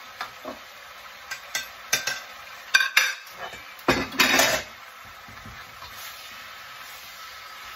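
A string of clinks and clatters as a ceramic plate is scraped and set down on other plates, the loudest a longer scraping clatter about four seconds in. Then a wooden spatula stirs sliced mushrooms in a wok over a faint sizzle.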